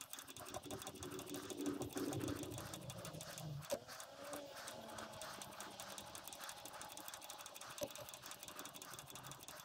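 Massey Ferguson 35x's new mechanical fuel lift pump being hand-primed, its priming lever worked over and over with a run of faint rhythmic clicks, with a couple of sharper clicks, while it draws fuel into its glass sediment bowl.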